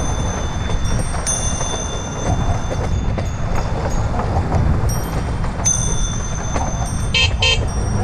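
Steady wind rush and rumble on a helmet-mounted action camera's microphone while riding a bicycle. Two short toots come near the end.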